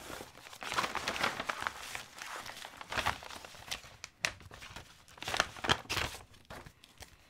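Paper rustling and crinkling as a white envelope and the folded sheets inside are handled and unfolded, in uneven bursts with a few sharper crackles.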